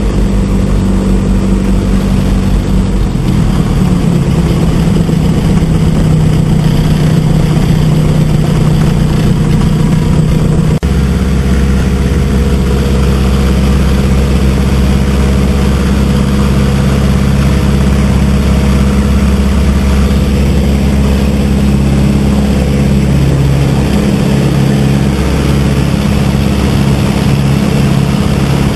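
Renault four-cylinder inverted inline engine of a Stampe SV4 biplane running at takeoff power, heard from the open cockpit over propeller and wind noise. The engine note shifts about three to four seconds in and changes suddenly about eleven seconds in, then holds steady through the climb-out.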